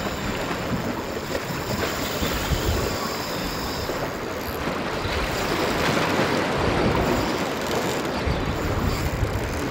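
Wind rushing across the microphone over water washing against the shore: a steady noise with no distinct events.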